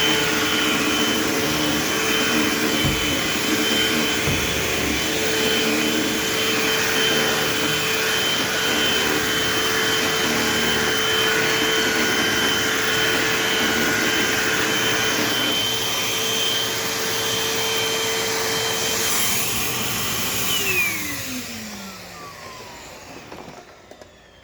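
Eureka AirSpeed AS1101 upright vacuum cleaner running steadily. About three seconds before the end its motor winds down with a falling whine and fades out.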